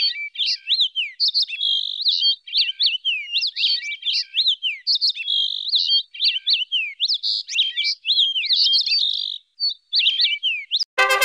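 Songbird singing in quick, varied phrases of chirps and sliding whistles, with short breaks about six and nine seconds in. Instrumental music starts suddenly right at the end.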